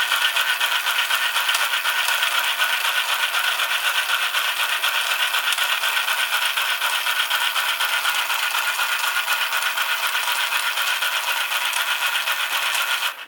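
Battery-operated hand-held chain-stitch sewing machine running steadily: a fast, even rattle from its small motor, light plastic gears and needle. It cuts off at the very end.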